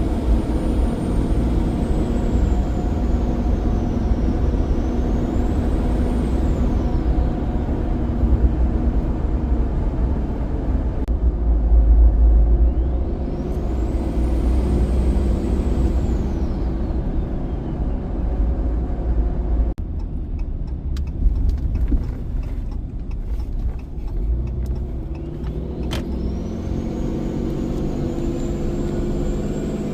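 Ram 2500's 6.7 Cummins diesel under a low drone, with the high whistle of a Hooligan billet VGT turbocharger. The whistle falls away in the first few seconds, climbs again about halfway and drops off, then rises once more near the end as the engine pulls harder.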